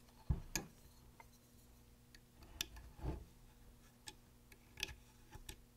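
Faint, irregular clicks and taps of a metal knitting hook against the pegs of a wooden knitting board as yarn loops are hooked over the pegs, about half a dozen scattered through.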